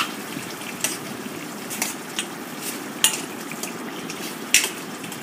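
Soya nugget and potato curry bubbling in a pan, with about four sharp clinks of a utensil against the pan, roughly a second apart.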